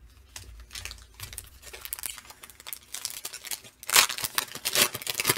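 Crinkling and tearing of a foil trading-card pack wrapper, louder about four and five seconds in, with light clicks of cards being set down on the desk.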